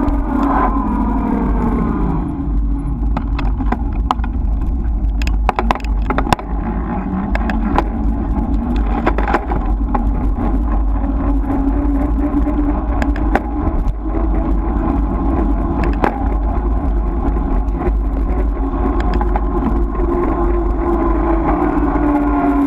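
Motor vehicle engine running at road speed, its pitch dropping over the first two seconds and climbing again near the end, over heavy wind rumble on the microphone. Scattered sharp knocks come through in the middle.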